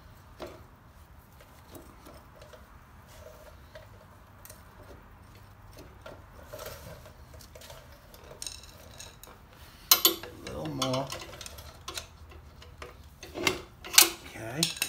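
Metal clinking from a half-inch steel rod being worked through a motorcycle's rear axle: quiet handling at first, then sharp ringing metal clinks about ten seconds in and again near the end.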